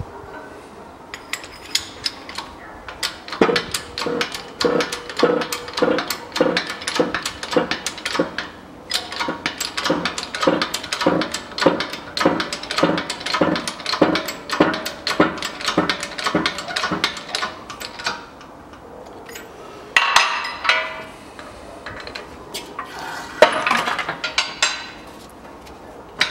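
Hand-pumped hydraulic shop press clanking at about two strokes a second while it presses the hub into a new front wheel bearing in the steering knuckle. It ends with a few clattering knocks of the steel knuckle being handled on the press bed.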